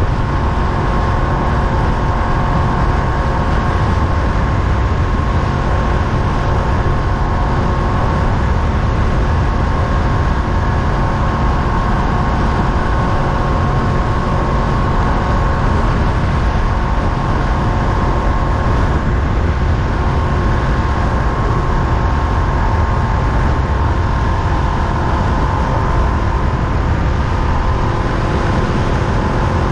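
Honda Rebel 500's parallel-twin engine running at a steady cruise, with heavy wind rush over the microphone. A few steady engine tones sit above a constant low roar.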